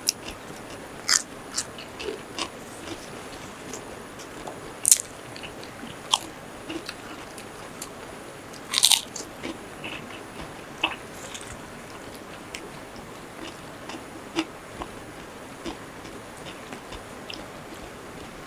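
People eating crunchy food by hand: scattered crisp bites and crunches, the loudest about five seconds in and a longer run of crunching about nine seconds in.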